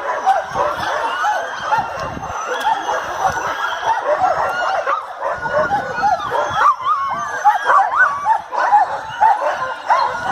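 A pack of sled dogs barking and yelping together: many short, overlapping calls that rise and fall in pitch, with no break.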